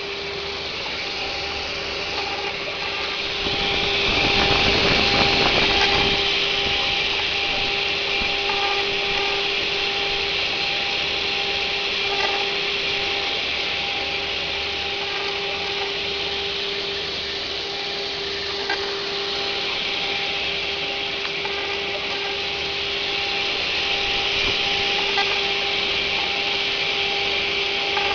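CNC stone engraving machine's spindle running with a steady whine while its cutter grinds a relief into a stone slab. The grinding hiss swells for a couple of seconds about four seconds in.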